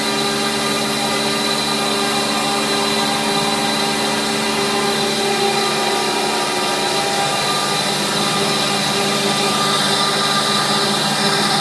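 Wood-sizing CNC router with a vacuum hold-down table running steadily: a constant machine hum made of several fixed tones, with a higher hiss growing for a couple of seconds near the end.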